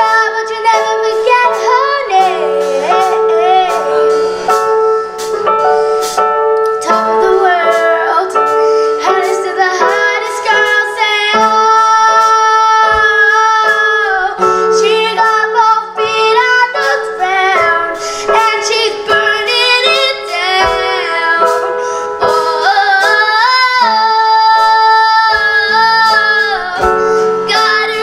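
A young girl singing a pop song live and playing electric keyboard, with a band behind her. Her voice holds long notes with vibrato over steady keyboard chords and drum hits.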